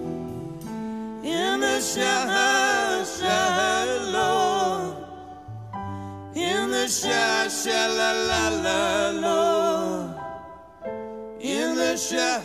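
A woman singing a wordless, wailing vocal line with strong vibrato over piano, in three long phrases broken by short pauses.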